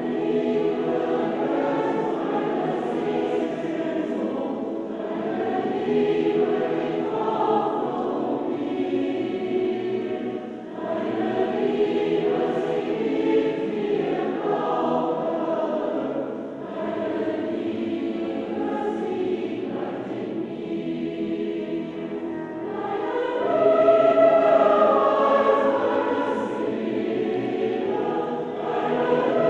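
Large mixed choir of men's and women's voices singing together, with brief pauses between phrases and swelling louder about three-quarters of the way through.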